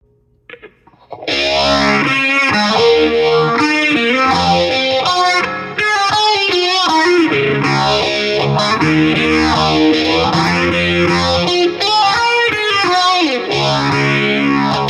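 Music on distorted electric guitar with effects, starting about a second in, with a sweeping effect that rises and falls every couple of seconds.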